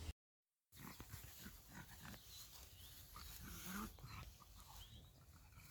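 Faint, scattered small sounds from a pug dog, after a brief dead-silent gap right at the start.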